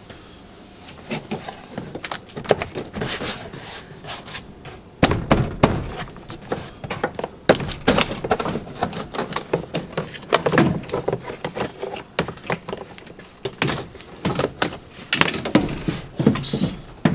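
Ford F-150 plastic interior door panel being popped off the door: a string of irregular clicks, knocks and thunks as the panel is worked loose from its retaining clips and handled.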